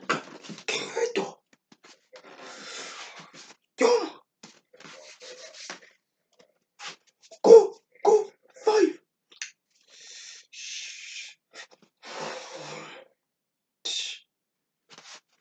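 A person's short, explosive vocal bursts, cough-like, mixed with stretches of breathy hissing. Three sharp bursts come in quick succession about halfway through.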